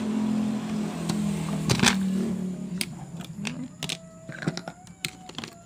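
Small clicks and taps of a screwdriver and plastic phone parts being handled on a table, with one sharper tap about two seconds in. A low steady hum sounds under the first half and fades out.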